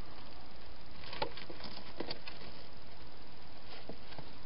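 Hedgehog eating at a feeding bowl: a scatter of short, irregular crunches and clicks over a steady hiss.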